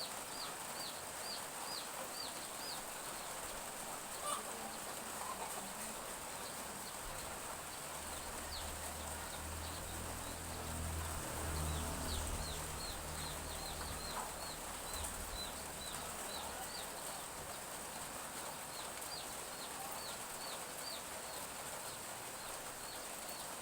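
Domestic chicks peeping in runs of short, high, falling peeps, about three a second, over the steady hiss of light drizzle. A low hum swells and fades in the middle.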